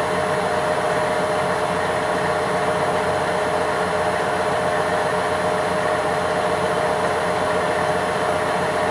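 Knee-type milling machine running steadily, a constant motor-and-spindle noise with a steady mid-pitched whine.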